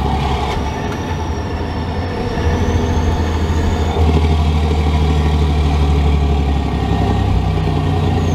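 Volvo F16 truck's straight-six diesel heard from inside the cab while driving: a deep, steady drone that grows louder about four seconds in.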